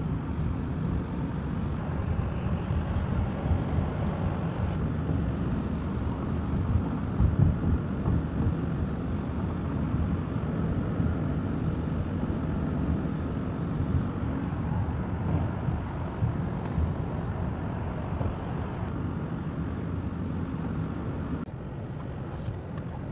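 Steady low rumble of road and tyre noise heard from inside a car at highway speed. It turns quieter near the end.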